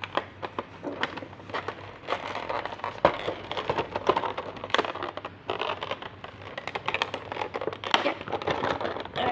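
A Funko Pop box being opened by hand: cardboard and plastic packaging crinkling and crackling, with many small irregular clicks.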